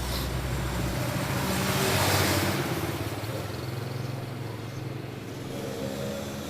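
A motor vehicle's engine passing by, swelling to its loudest about two seconds in and then fading over a steady low hum.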